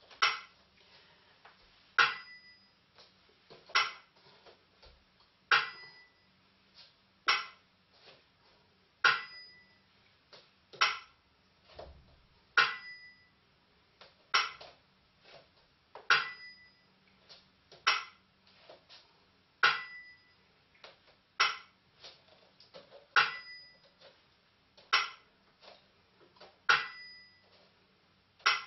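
Burmese time-keeping beat of si and wa, small hand bell-cymbals and a clapper: a sharp strike about every second and three quarters, alternating a ringing bell stroke with a dry clapper click, with faint lighter ticks between.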